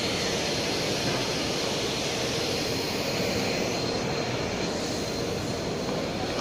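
Steady rushing background noise at an even level, with a faint high, steady whine running through it.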